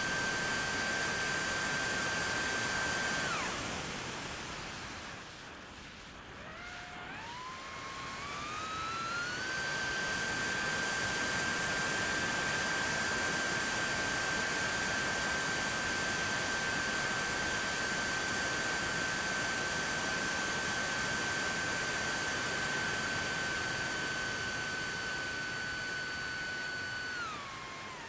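T-Motor F80 brushless motor and 5-inch three-blade propeller on an FPV flying wing, whining at full throttle on a speed run over rushing wind noise. About three seconds in the throttle is cut and only the wind rush remains. The whine then comes back, rising in pitch over a few seconds and holding steady before dropping off near the end.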